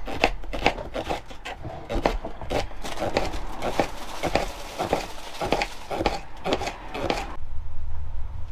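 Kitchen knife chopping on a wooden cutting board, a steady run of knocks about two to three a second that stops about a second before the end, leaving a low hum.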